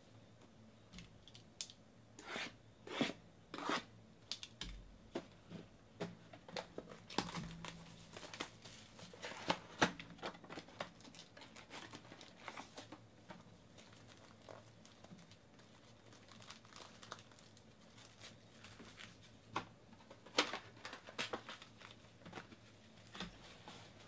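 Trading-card hobby boxes being opened by hand: irregular bursts of tearing and crinkling from the wrapping and foil packs, with small clicks and knocks as the cardboard boxes and packs are handled and stacked.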